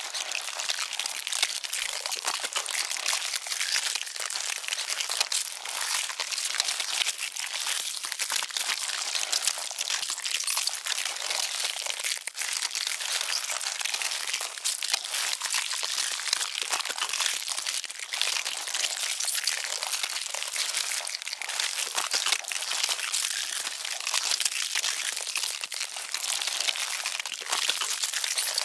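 Ants swarming and chewing, close-miked: a dense, unbroken fine crackling and crinkling, high and dry, at an even level throughout.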